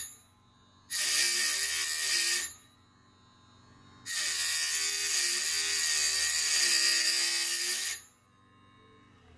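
Piston ring filer grinding the end of a piston ring to open up its end gap, in two bursts: a short one about a second in and a longer one of about four seconds from near the middle. The grinding note wavers in pitch as the wheel speed changes.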